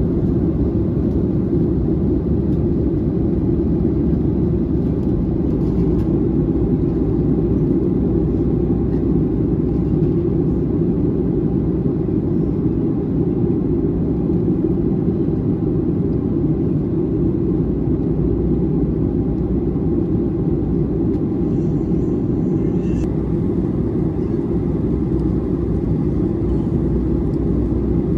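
Steady cabin noise of a Boeing 737 jet airliner in flight, heard inside the cabin: an even, low rush of engines and airflow.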